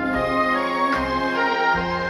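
Slow, tender ballad music with long sustained tones: the backing track of a sung performance.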